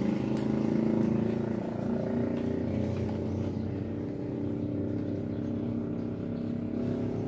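A motor running steadily: an even, low hum that holds one pitch throughout.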